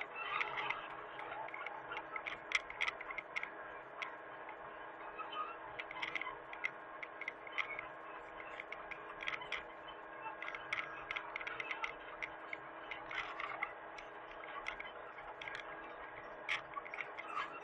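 A small machine running with a steady hum, with irregular ticks and clicks over it.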